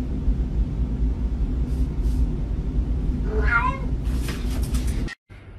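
A domestic cat meows once, a short wavering call about three and a half seconds in, over a steady low rumble. A burst of hissy noise follows, then the sound cuts off abruptly.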